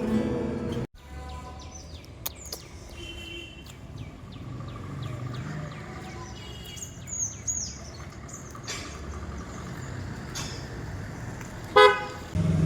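A song with guitar cuts off abruptly about a second in, giving way to outdoor background noise with many small birds chirping in quick, repeated calls. Near the end a brief, loud pitched cry stands out.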